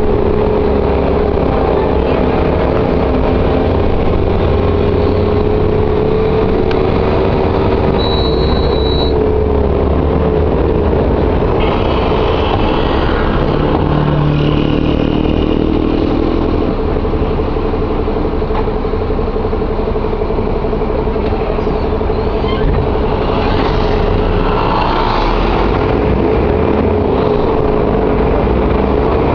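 Mercedes-Benz O-500M bus diesel engine running steadily under way, with a pitched drone and low rumble and a whine that rises and falls around the middle. A brief high tone sounds about eight seconds in.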